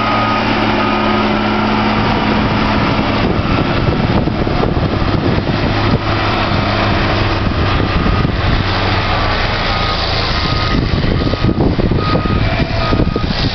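Caterpillar 140M motor grader's diesel engine running steadily under load as it drives forward grading the gravel, its hum weakening after the first few seconds as it pulls away.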